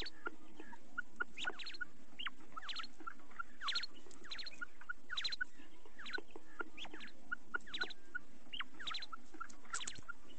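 Female common quail calling over and over. Small clusters of short soft notes alternate with quick upward-sweeping chirps in twos and threes, about once a second, over a steady background hiss.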